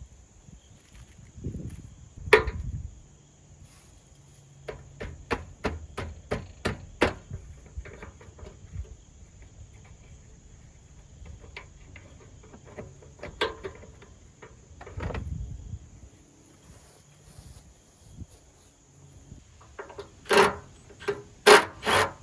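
Irregular sharp clicks and knocks of plastic trim being worked loose, with a quick run of clicks a few seconds in, a couple of dull thumps, and a louder cluster of knocks near the end.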